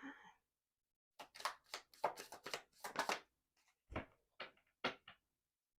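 Tarot cards being shuffled and handled: a quick run of card flicks and snaps lasting about two seconds, then a few single snaps.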